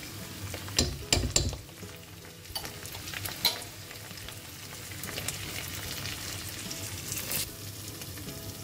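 Onions and ginger-garlic paste sizzling in hot oil in a pot while being stirred with a metal utensil. The utensil knocks sharply against the pot a few times about a second in, with a couple more clicks later.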